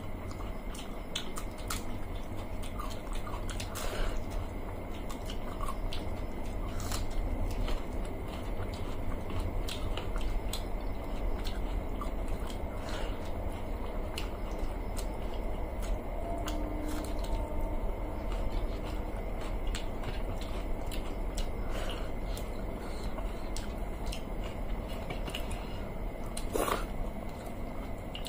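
Eating with the hands: chewing and biting fried fish, and wet squishing as fingers work water-soaked rice on metal plates. Many short clicks are scattered throughout over a steady low hum.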